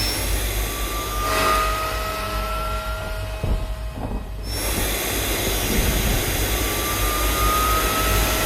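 Designed sci-fi vehicle sound effects: a low engine-like rumble and hiss with steady high tones and a slowly rising whine that comes twice, the hiss dropping out briefly about four seconds in.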